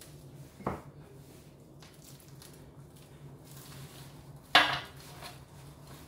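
A metal roasting tray knocks twice as a raw pork shoulder is handled and turned over in it: a light knock about half a second in, then a louder clank with a short ring about four and a half seconds in. Faint rustling of hands on the meat, over a steady low hum.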